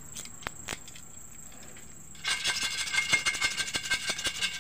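A few light clicks as a utility knife is handled. From about halfway in comes fast, steady rubbing and scraping on the glass of a CRT picture tube around its high-voltage anode cap, as the dirt there is scrubbed off.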